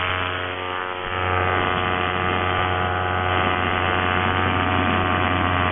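Paramotor engine and propeller running steadily in flight: a dense, even drone over a strong low hum. It eases briefly about a second in, then holds.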